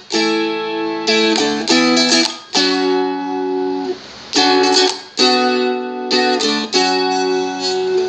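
Seagull Merlin, a small fretted dulcimer-style instrument, strummed with a pick: a run of chord strums broken by short, deliberate gaps where the strings are muted, with the chord changing several times.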